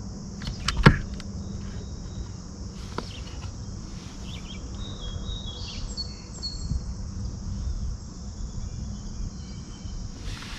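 Riverside ambience: insects buzzing steadily, with a few short bird chirps in the middle and a low steady hum underneath. A couple of sharp knocks come about a second in.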